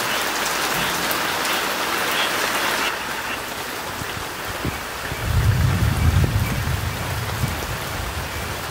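Steady rain falling on garden plants and lawn, its hiss heavier for the first three seconds. A low rumble swells about five seconds in and fades over the next couple of seconds.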